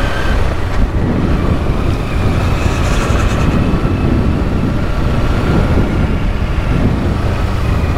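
Kawasaki Versys-X 300's parallel-twin engine running steadily while riding on a dirt track, under a constant low rumble of wind and road noise.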